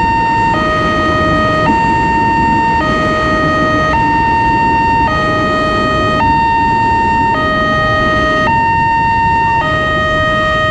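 Railway level-crossing alarm on a Wantech crossing gate sounding its electronic two-tone warning, switching between a higher and a lower tone a little more often than once a second while the barrier is down. Underneath runs the rumble of electric commuter trains passing over the crossing.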